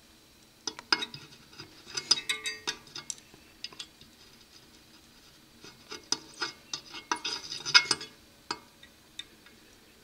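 Soldering iron tip and copper wire tapping and scraping against each other and an aluminium plate while a wire is soldered to an antenna connector: two bouts of quick metallic clicks and scrapes, from about a second in to three seconds and again from about six to eight seconds.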